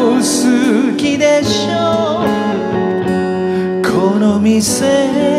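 A man singing a song in Japanese over acoustic guitar accompaniment, from a live recording; the voice holds notes with vibrato and slides between them.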